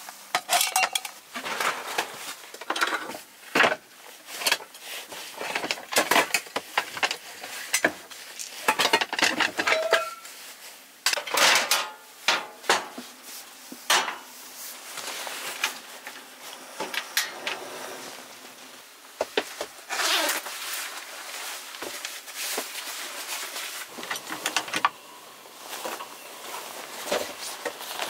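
Metal kitchenware being handled: irregular clinks and knocks as mugs, a stainless drip kettle and utensils are picked up and set down.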